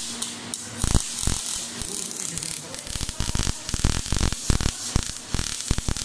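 Gas-shielded MIG welding arc crackling and popping in a rapid, uneven sputter over a steady hiss.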